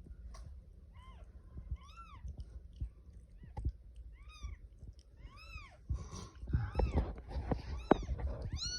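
Newborn kitten mewing: thin, high cries about once a second, each rising and then falling in pitch. Rustling and soft knocks between the cries near the end.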